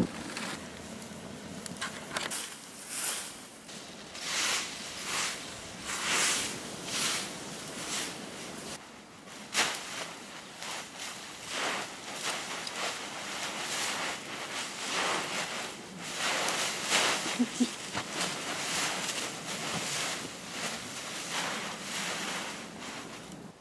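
Leaf rake swishing through a pile of fallen leaves, a run of rustling strokes about one a second, with a dog scrambling through the pile.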